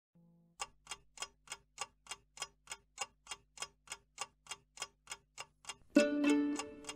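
Clock ticking steadily, about three ticks a second. Music comes in loudly about six seconds in.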